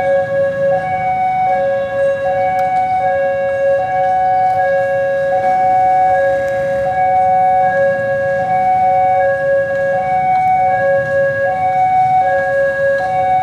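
Railway level-crossing warning alarm sounding: an electronic two-tone signal, a lower and a higher tone alternating about once a second, warning that a train is approaching.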